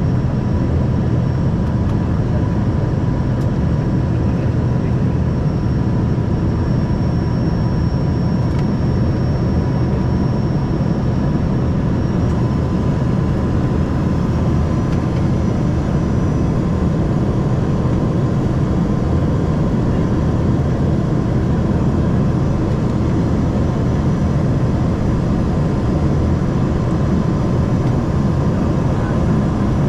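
Cabin noise of an Embraer ERJ 145 climbing after takeoff: the steady rumble of its rear-mounted turbofan engines and airflow, heard from inside the cabin. A thin steady tone runs through it, and a faint high whine shifts slightly in pitch about halfway through.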